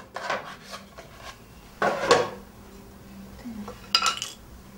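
Paintbrush scraping in clay paint cups and clay dishes knocking: a few short scrapes, a louder one about two seconds in, and a brief ringing clink about four seconds in.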